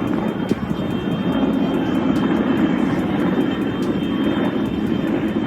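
Engine noise of a low-flying firefighting airplane passing close by: a steady roar that swells a little toward the middle.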